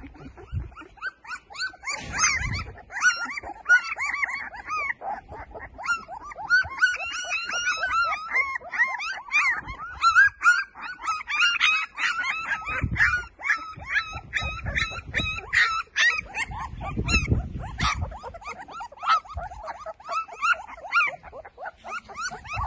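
A litter of German Shepherd puppies crying, many short high-pitched calls overlapping almost without a break.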